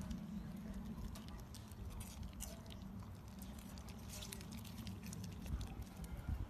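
Toy poodle on a wooden deck making a run of quick, light clicks and taps, thickest in the middle, over a low steady rumble.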